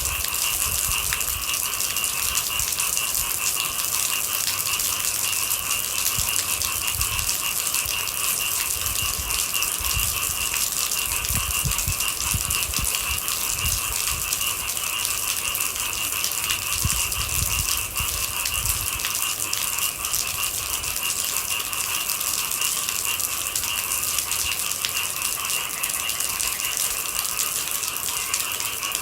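Steady rain pattering, with a continuous chorus of night animals shrilling at two pitches over it, and a few low rumbles during the first part.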